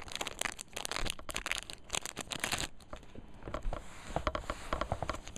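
Foil Pokémon booster-pack wrapper crinkling and tearing open for about the first two and a half seconds, then a quieter rustle with light clicks as the cards are slid out of the pack.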